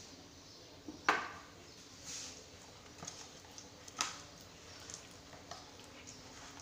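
Soft butter being squeezed and mixed by hand into a liquid mixture in a plastic bowl. Quiet squelching, broken by a few sharp knocks against the bowl; the loudest come about a second in and about four seconds in.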